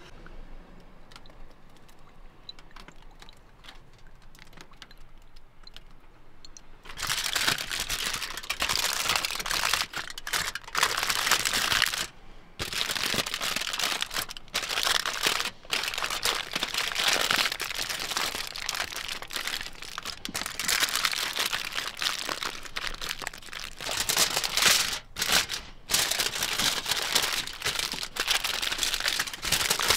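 Aluminium foil crinkling and crumpling as it is folded and pressed closed around food packets. Faint at first, then loud and nearly continuous from about seven seconds in, with a few short pauses.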